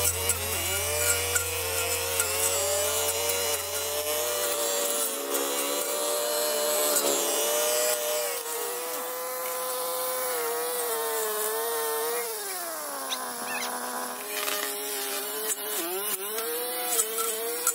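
Brush cutter motor running at high speed while the line cuts through dense weeds and vines, its pitch wavering as it bites into the growth. About twelve seconds in the pitch drops away as the throttle is let off, then climbs again a couple of seconds later.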